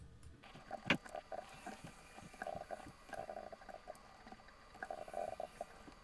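Faint, rapid clicking of a computer mouse, sped up, with one louder click about a second in.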